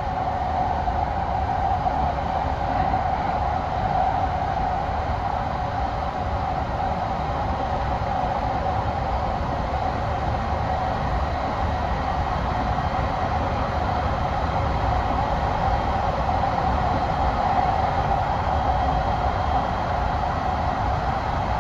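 TriMet MAX light rail train running, heard from aboard: a steady rumble of wheels on track with a constant mid-pitched hum.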